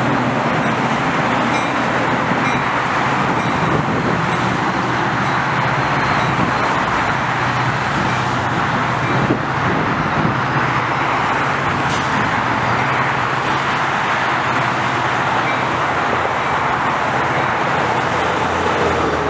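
Metra commuter train passing: a diesel locomotive and bilevel passenger cars rolling by, a steady low hum and wheel noise, mixed with steady road traffic noise.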